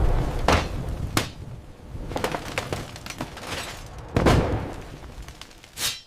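Tornado-strike sound effects: a low rumble broken by a series of crashes and thuds of breaking debris, the loudest about four seconds in, cutting off suddenly near the end.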